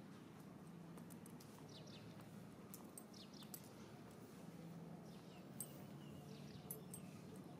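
Near silence: faint outdoor ambience with a low steady hum, a few faint high chirps and scattered light ticks.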